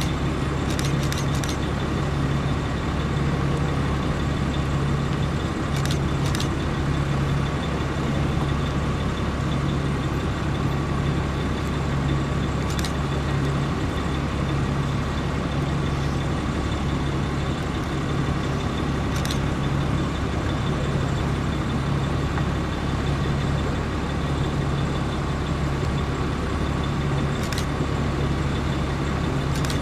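Steady low drone of vehicle engines as a slow line of police cars and SUVs rolls past. A low hum throbs about once a second, and a few faint clicks come through now and then.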